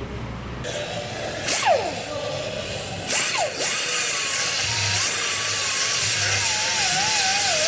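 Die grinder with a sanding pad grinding down a welded joint on a steel exhaust pipe. The motor's whine drops quickly in pitch a couple of times early on, then runs steadily with its pitch wavering as the pad is pressed onto the weld.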